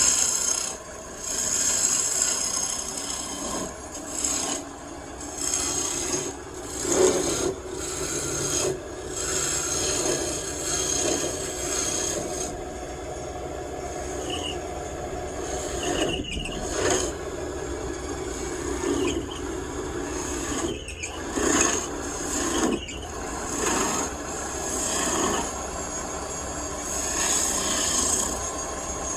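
Wood lathe spinning a table-leg blank while a hand tool scrapes against the turning wood, a continuous rasping that swells and eases as the tool is pressed in, with a few brief breaks where it is lifted off.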